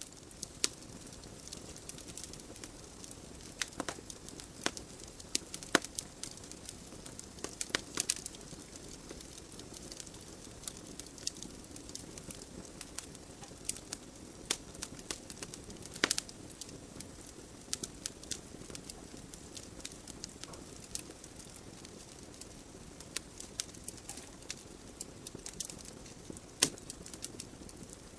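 Wood fire burning in a fireplace: burning logs crackle with irregular sharp pops over a steady soft hiss of the flames.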